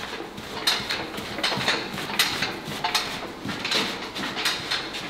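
Loaded strongman yoke rattling and clanking with each step as it is carried, the plates shifting on their pegs, with a few knocks a second.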